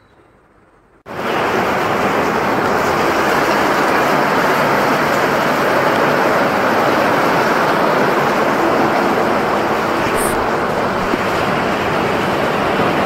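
Heavy rain pouring down in a steady, dense hiss, which starts abruptly about a second in.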